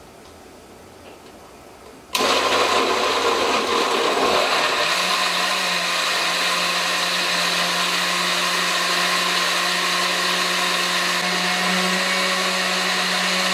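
A countertop blender is switched on about two seconds in, chopping chunks of mango and frozen cucumber with ginger in water. It sounds rough at first, then settles into a steady whir about five seconds in as the mix turns to smooth juice.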